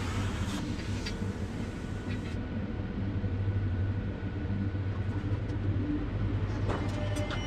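Steady low mechanical rumble from a running machine, with a faint steady whine above it and a few light clicks near the end.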